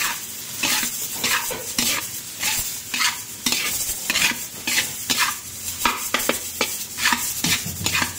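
Metal spatula scraping and turning rice in a metal wok, in quick strokes about twice a second, over the sizzle of the rice frying in butter and oil.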